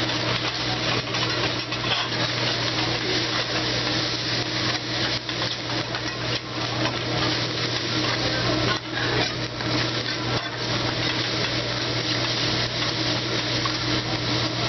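Fried rice sizzling on a hibachi flat-top griddle while metal spatulas scrape and clack across the hot steel in quick, irregular strokes, over a steady low hum.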